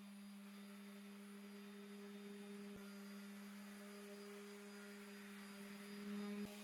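Orbital sander running steadily with a fine Scotch-Brite pad under it, buffing a finished tabletop: a low, even hum with light hiss, a little louder for a moment near the end.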